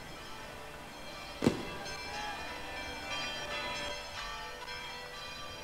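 A single firework bang about one and a half seconds in, followed by church bells ringing, many bell tones overlapping and fading.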